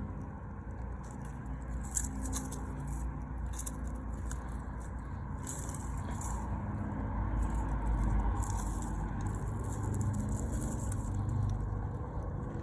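Scraping and rustling of soil being dug through by hand to unearth potatoes, in repeated short strokes over a steady low rumble that swells near the middle.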